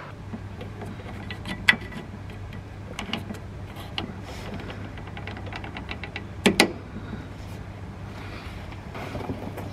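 Red plastic hose-clamp pliers being fitted and closed on a rubber fuel line: scattered clicks and knocks, the loudest a double knock about six and a half seconds in, over a steady low hum.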